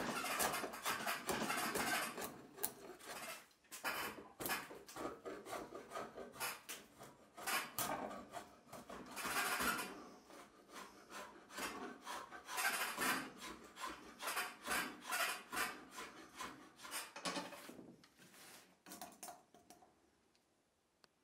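Hand tools working the willow of a cricket bat: a drawknife shaving the wood and a file rasping over it, in many repeated back-and-forth strokes that thin out near the end.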